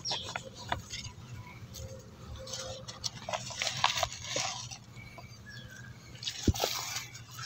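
Wooden stick scraping and prodding loose soil in a plastic polybag to loosen it: scattered short scratches and rustles, with a single sharper knock near the end.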